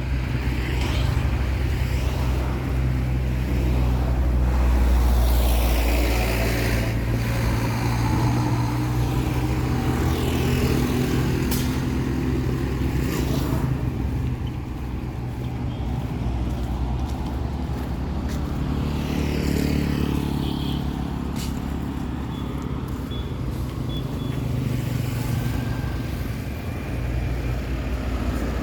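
Town street traffic: vehicle engines running steadily, with several vehicles passing close by one after another.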